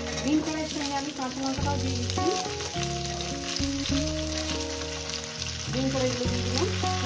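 Potatoes, green beans and green chillies sizzling in hot oil in a steel kadai, with a fine steady crackle as the beans go in. Background music with long held notes plays throughout.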